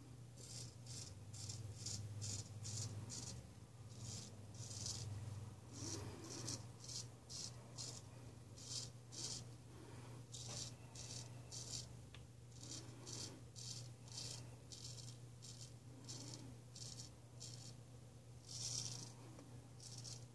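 Ralf Aust 5/8 round-point straight razor scraping through lathered stubble on the cheek: runs of short, high rasping strokes, several a second, with brief pauses between runs. A steady low hum lies underneath.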